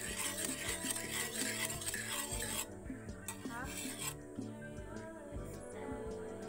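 A utensil scraping and stirring against cookware for about two and a half seconds, stopping suddenly, then a shorter scrape about three seconds in.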